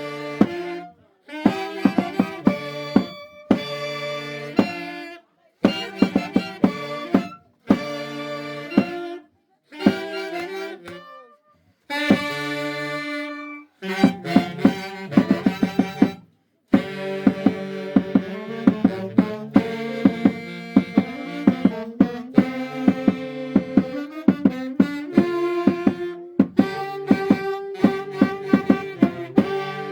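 Santiago dance music from the Mantaro Valley of Peru: a wind-instrument melody, likely saxophones, over a steady percussion beat. The music stops and restarts in short phrases several times in the first half, then plays on without a break.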